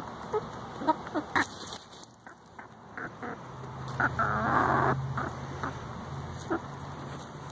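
Hens dust bathing in dry dirt: scattered scratchy ticks of grit and soil, with a louder rustle of feathers and dirt lasting about a second near the middle, and low chicken sounds underneath.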